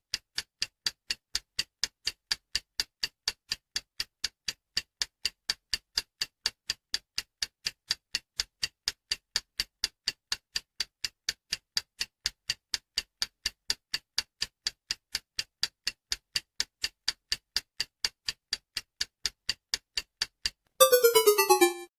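Countdown timer ticking like a clock, about two and a half ticks a second. About a second before the end, a short, loud falling tone sounds as the countdown runs out, then cuts off.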